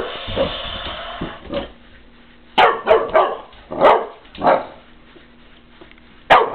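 Boxer puppy barking at a robotic dinosaur toy: about half a dozen short, sharp barks in irregular bursts, starting after about a second and a half of steady noise.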